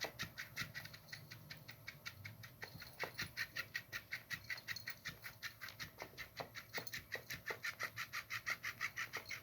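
Motorized flopping-fish cat toy flapping in a steady rhythm of about five slaps a second, with a metallic motor sound like someone sawing wood.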